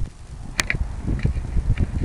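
Low, uneven rumble of wind and airframe vibration picked up by a camera riding on an RC trainer plane, with a few light clicks. The louder motor sound drops away right at the start.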